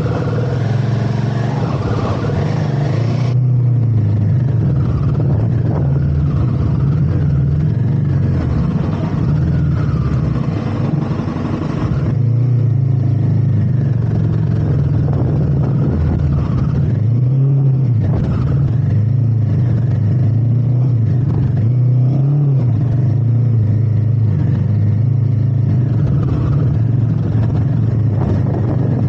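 Royal Enfield Himalayan 450's single-cylinder engine running on the move over a trail, its pitch rising and falling with the throttle a few times.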